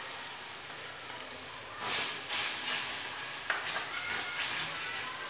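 Cornflour and soy-sauce gravy sizzling as it hits hot oil in a steel kadhai, with louder swells of hissing and scraping from about two seconds in as it is stirred with a wooden spatula, and one light knock about halfway through.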